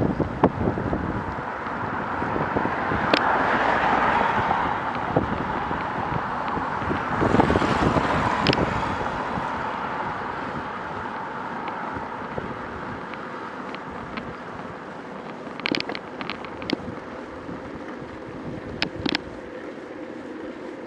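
Wind buffeting the camera's microphone while it moves along a street, with cars passing, the loudest going by a few seconds in and again about eight seconds in. Scattered light clicks or rattles from the mount near the end.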